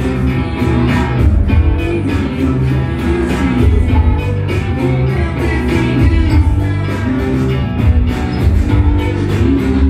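Live indie rock band playing loud and continuously: electric guitar and bass guitar over a steady drum beat.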